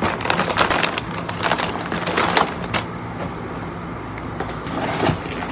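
Crinkling and rustling of product pouches being handled, pulled from a cardboard box and set down in a row, with irregular small crackles and taps throughout.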